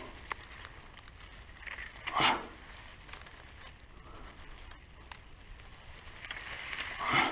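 Water splashing and bankside grass rustling as a large zander is grabbed by hand at the water's edge, with two brief louder splashes, about two seconds in and near the end.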